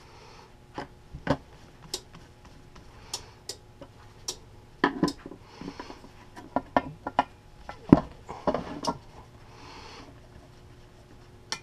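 Scattered light clicks and taps of a screwdriver and crimped wire lugs at a variable frequency drive's terminal block as a wire is fastened, with faint rustling of work gloves. The sharpest click comes about eight seconds in.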